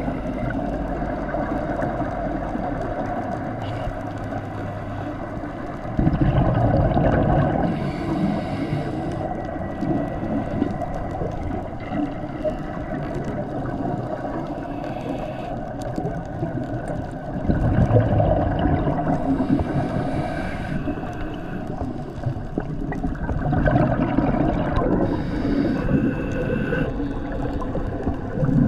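Scuba breathing heard underwater: the regulator's exhaled bubbles gurgle out in swells of about two seconds every five or six seconds, over a constant underwater wash. A low steady drone sits under the first few seconds.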